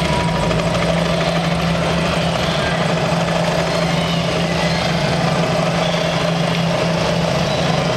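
Recorded helicopter sound effect played loud through a concert arena's sound system: steady rotor and engine noise that holds at an even level.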